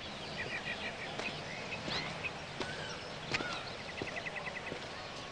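Small birds chirping over a steady hiss of outdoor background noise, with two quick chirping trills, one early and one near the end, and a few soft clicks.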